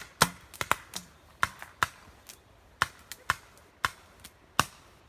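Paintball markers firing: about a dozen sharp pops at irregular intervals, some in quick pairs.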